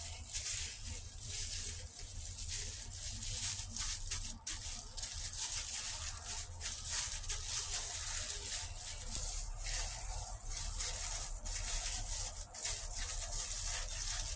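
Plastic-bag-gloved hand pressing and turning fish nugget patties in fine breadcrumbs: a steady run of small rustles and crackles from the crinkling plastic and the crumbs.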